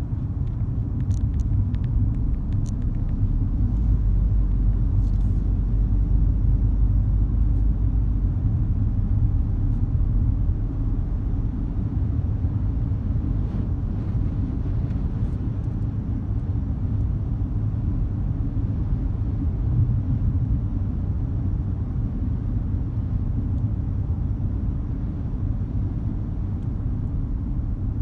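Steady low rumble of road and engine noise inside the cabin of a moving car, swelling a little a few seconds in. A few faint ticks sound near the start.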